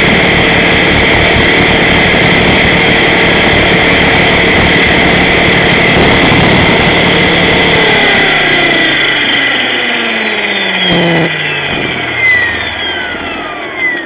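Align T-Rex 500 RC helicopter's electric motor and rotor running at a steady whine, then spinning down after touchdown, the pitch falling away steadily over the second half. A few short knocks come near the end.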